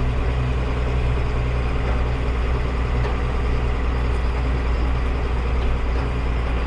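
Combine harvester running steadily, a constant low engine drone with no change in pitch.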